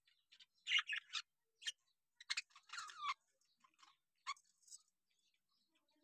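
Budgerigar chicks chirping: short, high calls in quick clusters, most of them in the first three seconds, then a few fainter ones.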